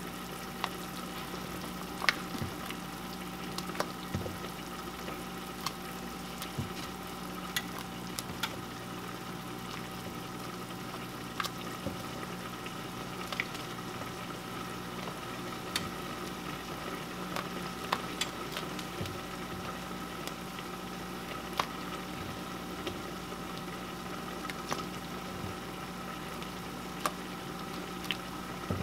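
Pot of chicken broth bubbling hot over a steady hum, with short splashy clicks at uneven intervals of a second or two as squares of rolled dumpling dough are dropped into it one at a time.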